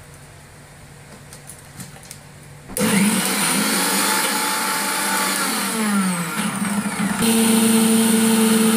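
Electric mixer grinder switched on a little under three seconds in, grinding mint leaves into a spice paste; its pitch sags as the motor labours through the load, then it jumps to a steady higher whine about seven seconds in. A few light clicks of the lid being handled come before it starts.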